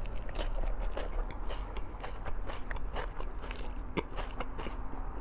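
A person chewing food close to the microphone: a continuous run of short, irregular mouth clicks, with one sharper click about four seconds in.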